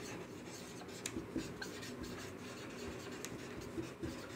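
Marker pen writing on a whiteboard: faint scratching of the tip across the board, with short separate strokes as each letter is drawn.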